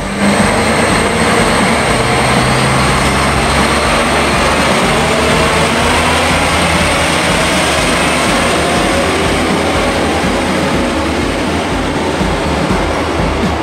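Small Rhätische Bahn diesel shunting tractor running steadily as it hauls a flat wagon with a container along the track, its engine and the wheels rolling on the rails.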